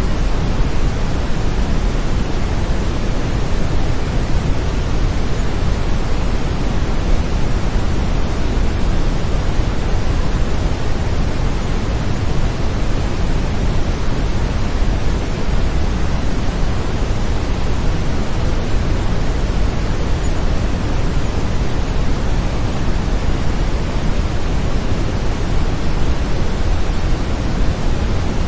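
Steady brown noise: an even, deep hiss, heaviest in the bass.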